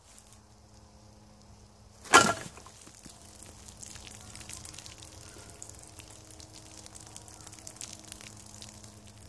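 A yew self-bow trap firing: one sharp crack about two seconds in as the arrow is loosed into a hanging plastic water bottle. Faint irregular ticking follows.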